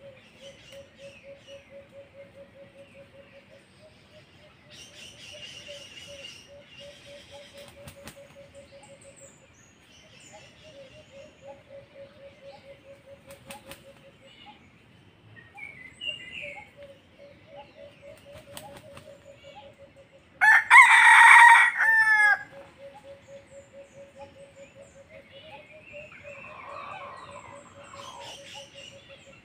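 A wild red junglefowl rooster crows once, a loud short crow about two-thirds of the way through that ends on a falling note. A faint steady pulsing sound runs in the background.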